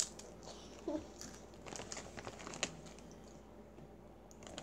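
Rap Snacks chip bag crinkling in short, scattered crackles as a hand reaches in to take a chip.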